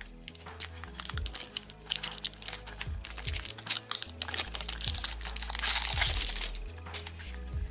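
Wrapper crinkling and tearing as it is peeled off a plastic Fash'ems toy capsule, loudest near the end, over background music with a steady bass line.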